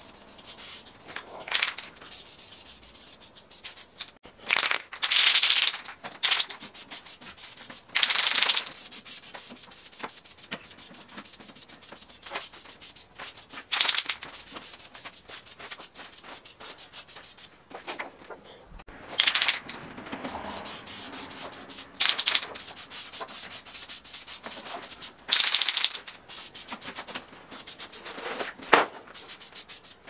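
Aerosol spray-paint can of engine enamel hissing in short bursts of about a second, repeated every few seconds, as a wheel is painted in passes.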